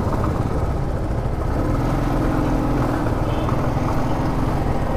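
Motorcycle engine running steadily at low speed in slow street traffic, heard from the rider's seat.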